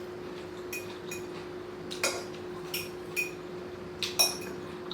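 A metal fork clinking against a dish while picking up salad: several short, sharp clinks at irregular moments, over a faint steady hum.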